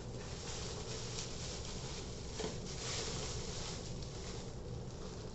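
Rustling and crackling of packaging being handled as a part is unwrapped.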